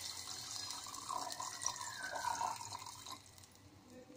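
Tamarind juice poured in a stream into an aluminium pot of fried spices, splashing as it fills; the pouring fades out about three seconds in.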